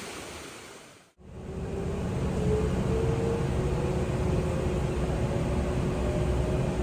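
Electric train running, heard from inside the carriage: a steady low rumble with a thin motor whine that drifts slowly in pitch. It fades in after a brief drop to silence about a second in.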